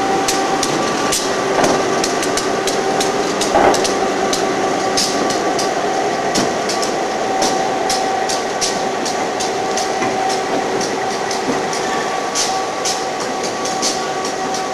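Freight train of hopper cars rolling across a steel girder bridge: steady rumble of wheels on rail with many sharp, irregular clanks and clicks from wheels over rail joints, under a steady hum.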